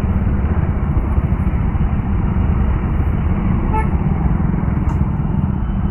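Motorcycle riding in traffic: steady wind rush with the Hero Xpulse 200 4V's single-cylinder engine running underneath, and a brief horn toot about four seconds in.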